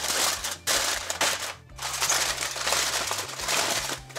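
Aluminium foil crinkling and crumpling as hands fold and crimp it tightly around a rack of ribs, in a run of crackly bursts broken by brief pauses.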